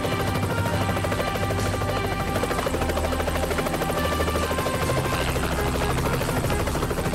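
Helicopter rotor chopping in a rapid, even beat while the helicopter lifts off and climbs, with steady musical notes underneath.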